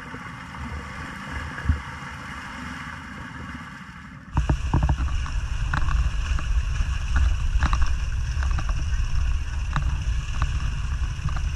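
Honda Foreman ATV engine running as the quad wades through deep mud and water, with heavy low wind rumble on the microphone. About four seconds in the sound cuts abruptly to a much louder, closer take of the quad churning through the mud hole.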